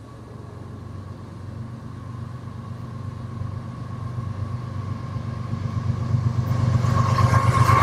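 Union Pacific freight train's lead diesel locomotives approaching, their engines' low rumble growing steadily louder. Higher tones build up near the end as the locomotives draw close.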